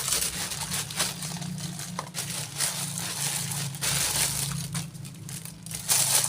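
Packaging crinkling and rustling as it is handled and pulled open, in irregular stretches.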